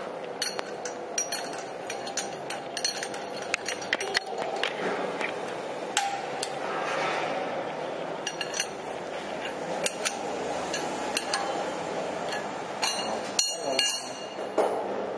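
Steel wrenches clinking against the steel knife bolts and rotor of a plastic granulator as the knife bolts are fitted and tightened. Many sharp metallic clicks come at irregular intervals, with a quick cluster near the end, over a steady background noise.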